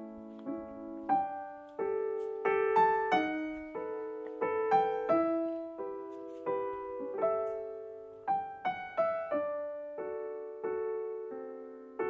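Background music played on piano: a melody of single notes over chords, each note struck and then fading.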